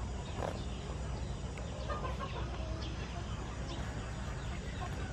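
Chickens clucking now and then in the background over a steady low hum.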